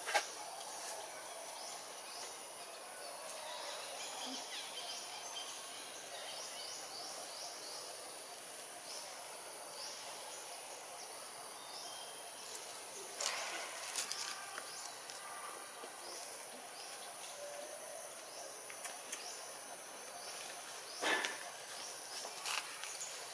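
Forest ambience: a steady high-pitched insect drone with small birds chirping, and a few brief rustles or clicks, about halfway through and near the end.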